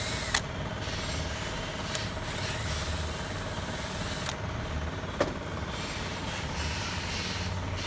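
Cordless drill running steadily in reverse, backing a long screw out of a carpet extractor's pump mount, and stopping about four seconds in. A few sharp clicks, over a low steady hum.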